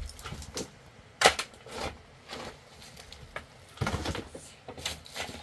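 Shovels scraping and digging into dirt and rubble, with loads tipped into a metal wheelbarrow. A sharp clack about a second in is the loudest sound, followed by several longer scraping shovel strokes.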